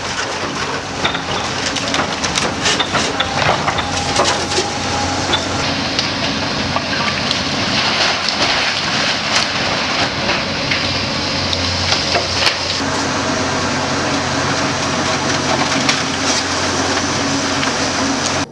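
Demolition of a fire-damaged building: structure and debris crushing and splintering, with many cracks and crashes, over the steady drone of a heavy machine's engine.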